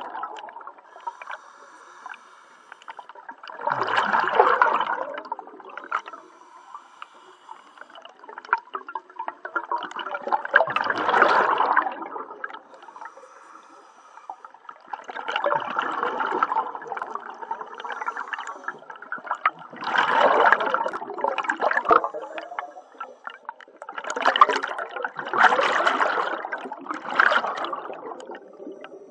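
Scuba diver breathing through a regulator underwater: bursts of exhaled bubbles gurgling every few seconds, with quieter gaps between.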